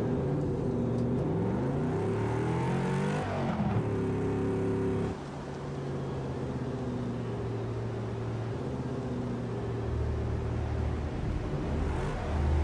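Car engine accelerating away, its pitch climbing and dropping back through a couple of gear changes, then holding steady. About five seconds in it cuts abruptly to a quieter, steady low hum.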